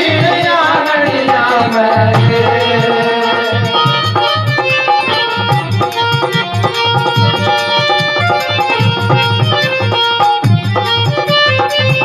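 Rajasthani folk music: a harmonium plays the melody over a steady beat on the deru, a hourglass drum. A voice sings through the first couple of seconds, then the harmonium carries on alone with the drum.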